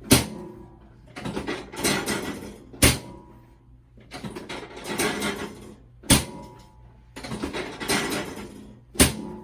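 Chiropractic adjustment on a treatment table: a rustle of handling, then a single sharp knock, repeated four times about three seconds apart. These are adjustments to correct a short right leg.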